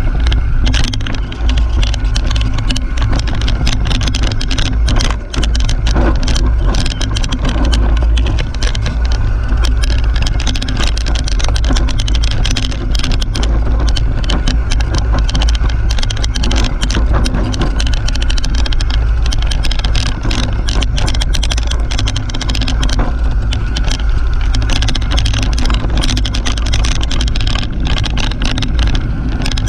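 Mountain bike riding fast down a dirt forest trail: heavy wind rumble on the camera microphone with tyre rolling noise, and frequent clatters and knocks from the bike over the rough ground.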